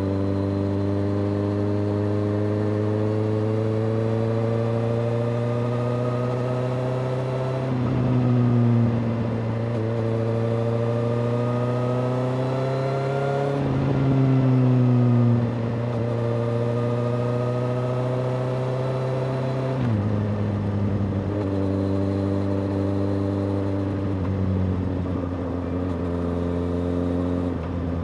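Suzuki GSX-S750's inline-four running through a Yoshimura R-77-J exhaust under way. Its note climbs slowly, then drops sharply three times, about 8, 14 and 20 seconds in, with short louder swells around the first two drops.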